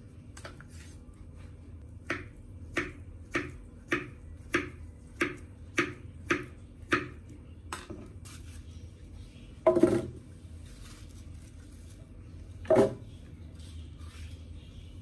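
Kitchen knife chopping kiwi fruit on a wooden cutting board: about ten even knocks of the blade on the board, a little under two a second. Then two louder, heavier thuds a few seconds apart.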